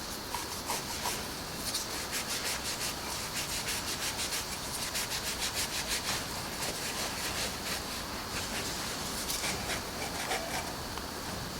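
Wood being sanded by hand with sandpaper, in quick, even back-and-forth strokes of about five a second.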